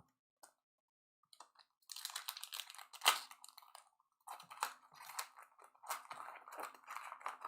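Crinkling and crackling of a trading-card pack wrapper and cards being handled. There is a dense run of small crackles and clicks that starts about two seconds in.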